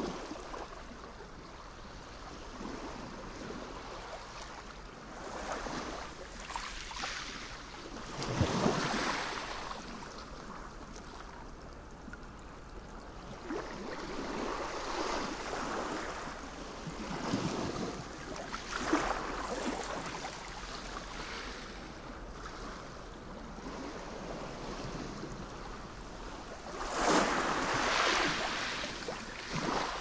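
Sea waves washing and breaking: a rush of water that swells and fades. The loudest surges come about eight seconds in, again around eighteen seconds, and near the end.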